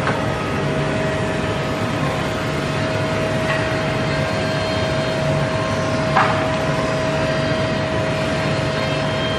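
Woodmaster WM-1625R CNC router running steadily with a constant whine, and one sharp knock about six seconds in.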